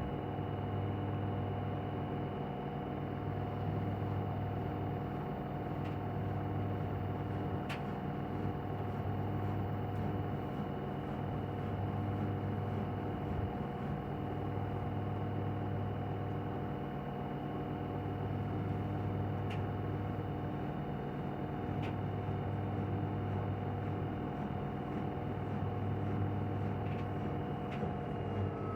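LG washing machine spinning at 1200 rpm on the cotton program: a steady motor whine over a low hum that swells and fades about every two seconds, with a few faint clicks. Right at the end the whine starts to drop in pitch.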